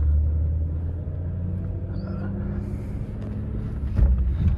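BMW 325e's 2.7-litre inline-six engine running under way, heard inside the cabin with road noise. The engine sound eases about a second in, and there is a brief low thump about four seconds in.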